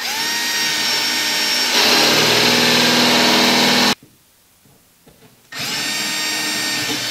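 Cordless drill boring into a wall, twice. The first run speeds up, gets louder and heavier about two seconds in as the bit bites, and cuts off at about four seconds. After a short pause the drill starts again for a second hole.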